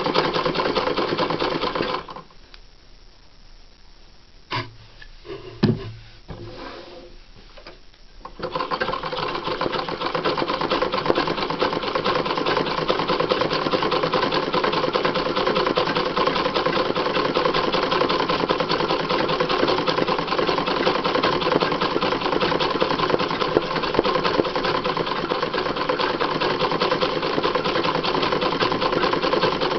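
Sewing machine running steadily while stitching free-motion embroidery. It stops about two seconds in, a couple of short knocks come during the pause, and it starts running again about eight seconds in.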